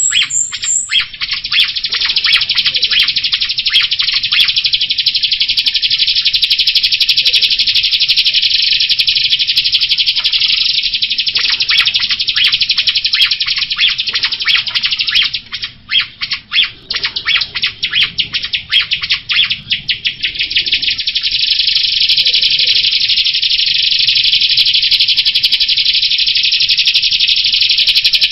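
Jalak rio starling singing a loud, continuous, rapid chattering song of dense high notes. About halfway through it breaks for a few seconds into stuttering separate notes, then the dense chatter resumes.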